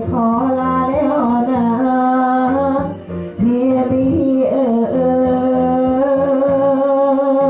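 A voice singing Thai lae in a hoarse, raspy tone, sung for comic effect. The voice slides between notes, then holds one long note near the end.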